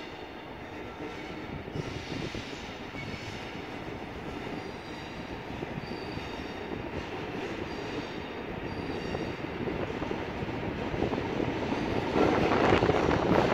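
Diesel-hauled empty coaching stock train, a Class 47 and a Class 57 locomotive, creeping into the station on a curve, growing louder as it approaches, with faint high squeals from the wheels on the curved track. The locomotive sound rises sharply near the end as the train draws close.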